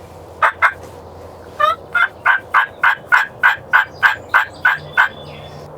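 Hen turkey yelping: two short notes, then a run of about a dozen evenly spaced yelps at roughly three a second.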